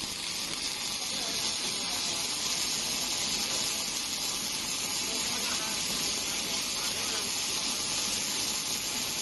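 Steady hiss of a robotic arc welder's arc laying a weld bead on an excavator bucket.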